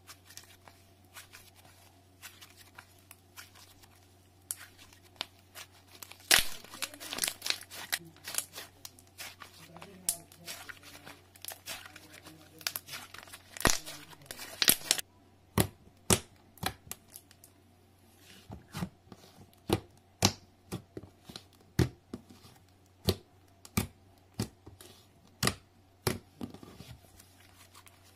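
Clear slime mixed with sand being stretched, squeezed and folded by hand, giving sticky crackles and sharp popping clicks. The crackling runs thick for several seconds in the first half, then thins to single pops about once a second, over a low steady hum.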